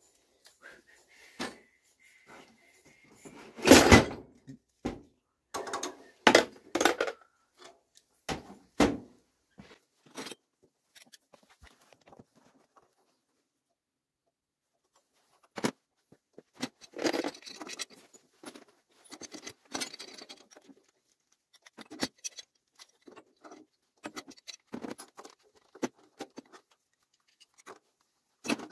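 Metal hand tools and pipe fittings clanking and knocking at irregular intervals as a pipe wrench works a boiler's brass relief valve, with one loud knock about four seconds in and a few seconds of near quiet in the middle.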